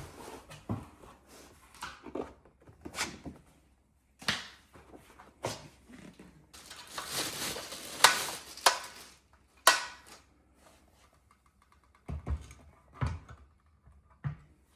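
Handling noises from a full-motion TV wall mount and its packaging: scattered knocks and clunks, with a stretch of rustling around the middle and a sharp knock about eight seconds in.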